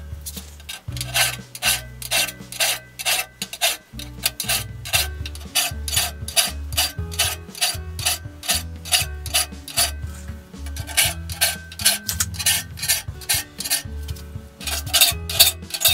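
Flat hand file rasping across the steel pointed cutting teeth of a one-man crosscut saw in quick, even strokes, about two to three a second. The teeth are being filed along their bevel until the shiny flat spot at each tip is gone and the tooth comes back to a point.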